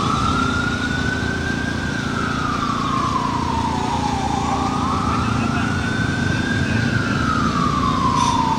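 Emergency vehicle siren in a slow wail, rising and falling twice, each sweep taking about four seconds, over a steady low engine rumble.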